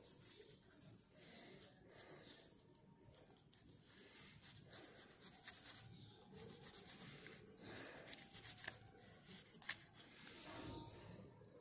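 Glue being spread by hand over a sheet of A4 paper: faint, uneven rubbing and rustling of the paper in many quick, scratchy strokes.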